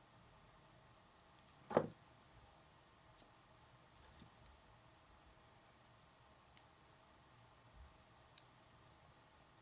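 Faint clicks and taps of small plastic plugs and hand tools being handled on a tabletop, with one louder knock about two seconds in.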